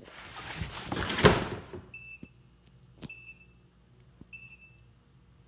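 Rustling handling noise for the first couple of seconds, then three short, high electronic beeps about a second apart.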